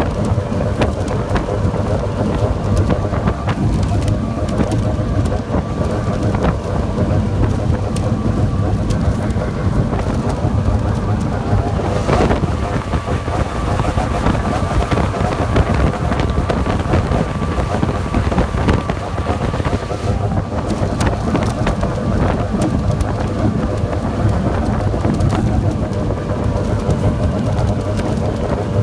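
Mercury Racing 300XS outboard, a two-stroke V6, running steadily at wide-open throttle at about 67 mph. Heavy wind on the microphone, with the hull knocking through tight chop.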